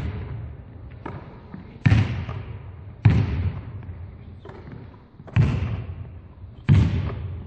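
Volleyballs bouncing on a wooden sports-hall floor and being caught: four sharp thuds, one every second or two. Each trails off in the hall's long echo.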